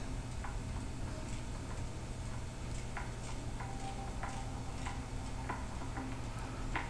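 Quiet room tone: a steady low hum with faint, irregularly spaced small clicks.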